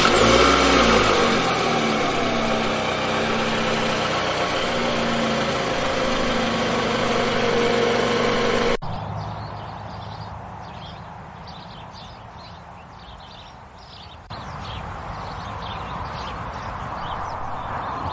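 Car engine sound effect: an engine that has just started, running loudly with rising revs, then an abrupt cut about nine seconds in to a quieter car running along the road, which grows louder after another cut near the end.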